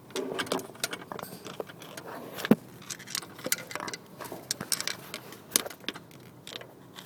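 Irregular small metallic clicks, taps and scrapes of a screwdriver being worked against metal parts to line them up, with one sharper knock about two and a half seconds in.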